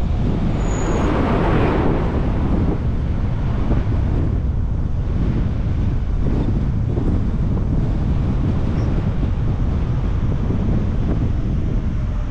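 Wind buffeting the microphone of a camera on a moving car, over a low road rumble, with a stronger gust about a second in.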